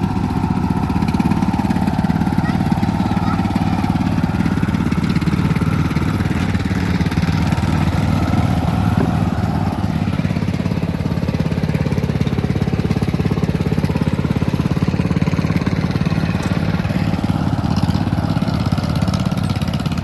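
Lawn mower engines running steadily at an even speed, one of them with a partly cut-off muffler.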